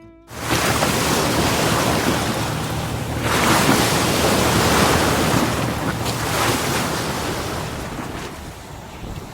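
Sea waves breaking and washing in, with wind; the surf swells up about three seconds in and eases off toward the end.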